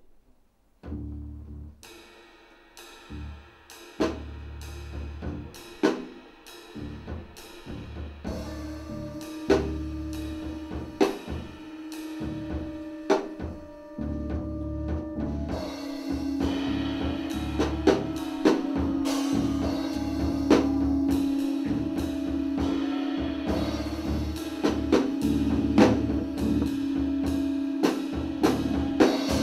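Live improvised jazz trio music. After about a second of near silence, the drum kit begins with sparse, irregular hits over low sustained bass notes. From about halfway a held tone comes in and the playing grows denser and louder.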